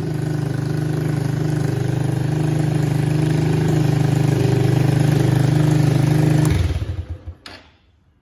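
Unmuffled 2013 Honda CB125E single-cylinder four-stroke engine, straight out of the exhaust header, running steadily at idle. About six and a half seconds in it is switched off and dies with a few last low pulses.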